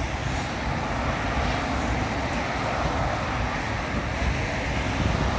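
Steady, even roar of a distant jet airliner's engines as it moves along the runway, mixed with wind buffeting the microphone.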